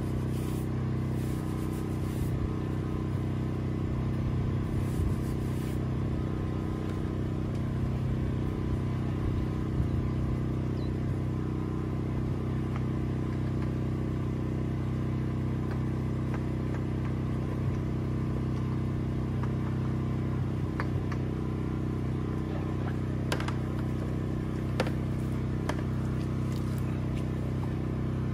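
An engine running steadily at a constant speed, with a few light clicks and scrapes over it.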